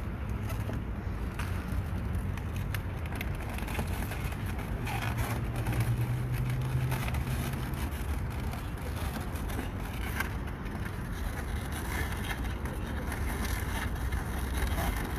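Steady low outdoor rumble, with a low hum standing out from about five to eight seconds in.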